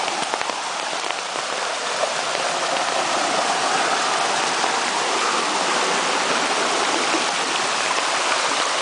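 Steady rush of a rain-swollen creek's fast-flowing water, growing a little louder a few seconds in.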